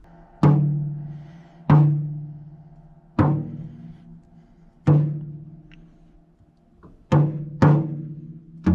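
DW Design Series tom with a freshly fitted Remo Powerstroke 4 head, tapped single hits while its head tension is being tuned. Each hit rings with a steady pitch that dies away. There are six hits, the last two close together, and a lower-pitched drum is struck right at the end.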